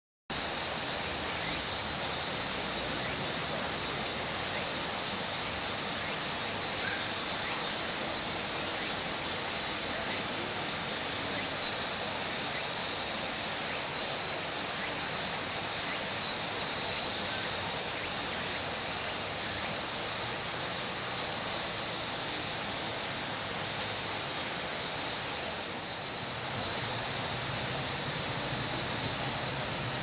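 Steady, unbroken, high-pitched drone of a summer insect chorus.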